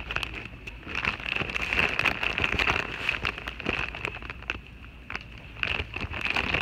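Chips being eaten close to the microphone: irregular crackling crunches, over a steady high-pitched whine.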